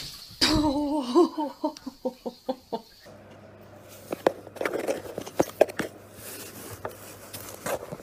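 A person laughing: one long wavering laugh that breaks into short ha-ha pulses and fades out. After about three seconds, quieter scattered light clicks and rustles follow over a low hum.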